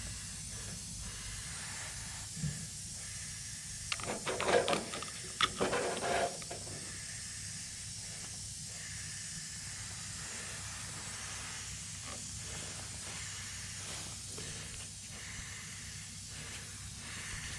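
Steady faint hiss, with a few short handling noises about four to six seconds in.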